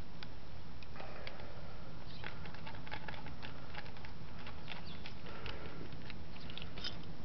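Faint scattered light clicks and rustling of a worm-drive hose clamp and a silicone intake hose being handled, over a steady low hum.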